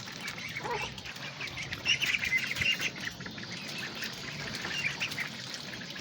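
Ducklings peeping, with many short high cheeps that come thickest about two to three seconds in and one lower call just under a second in, over a steady hiss of rain.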